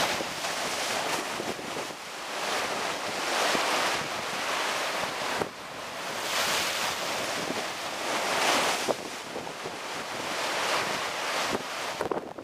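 Sea surf washing and breaking, mixed with wind buffeting the microphone; the noise swells and fades every few seconds.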